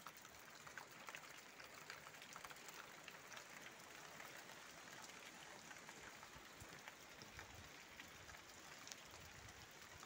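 Faint patter of spring water dripping and trickling down a mossy rock face, many small drops falling steadily.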